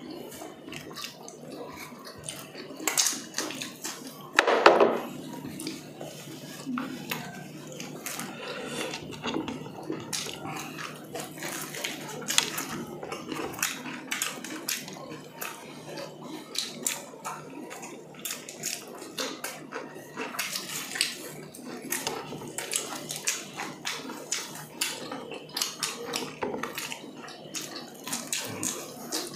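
Close-miked eating by hand: fingers tearing grilled chicken, chewing, and light clinks and scrapes on plates, as a run of small clicks and crackles. A short louder burst comes about four and a half seconds in.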